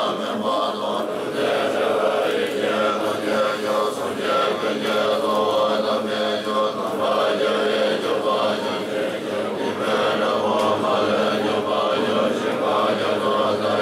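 Yungdrung Bon monks chanting prayers together in unison: a steady, unbroken chant of many male voices.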